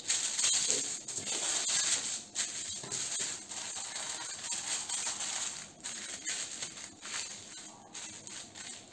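Aluminium foil crinkling and rustling as hands fold and crumple it into a small packet, louder at first and softer near the end as it is pressed flat.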